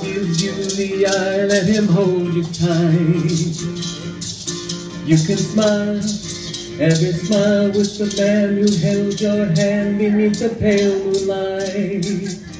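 Music with a steady shaker rhythm under a melody line.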